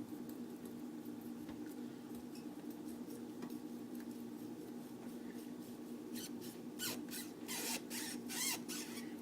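Kitchen knife sawing into a rubber bouncy ball. The strokes come roughly every half second in the latter half, some with a short squeak of blade on rubber.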